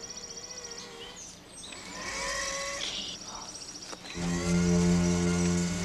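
Outdoor woodland ambience with a fast high pulsing and a few short chirps, then background music of sustained low chords comes in loudly about four seconds in.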